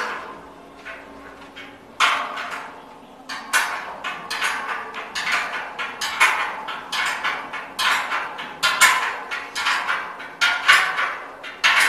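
Steel spanner clinking and knocking against the bolt heads and steel rail clips of a lift guide rail as the rail-to-bracket bolts are tightened. It is a quick, irregular run of metal clicks, several a second, starting about two seconds in.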